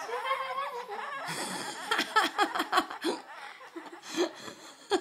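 A sung voice holds a last note that ends about a second in, followed by laughter in quick ha-ha bursts that taper off.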